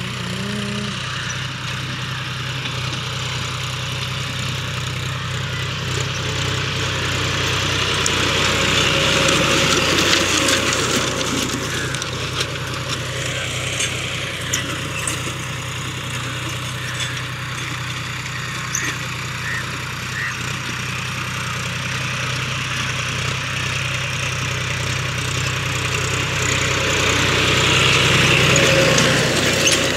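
John Deere 5050D tractor's three-cylinder diesel engine running steadily under load as it pulls a disc harrow through the soil. It grows louder twice as the tractor comes near, about a third of the way in and again near the end.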